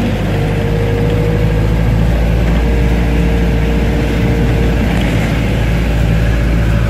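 Engine and road noise heard from inside a moving microbus: a loud, steady low drone.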